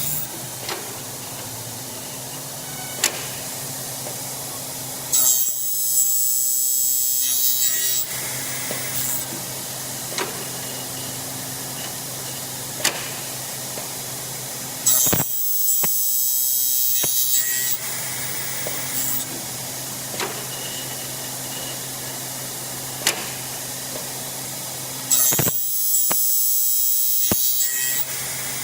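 F55 double-head aluminium cutting saw running with a steady hum, its blades making three cuts through Xingfa aluminium profile, each a high-pitched cutting noise lasting two to three seconds, about ten seconds apart, with short clicks in between. The cuts are made dry, without coolant oil.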